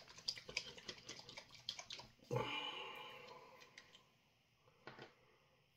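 Rapid light clicking of a hot sauce bottle being handled and its screw cap twisted. A louder sudden sound comes a little over two seconds in and fades over about a second and a half, and one faint click comes near the end.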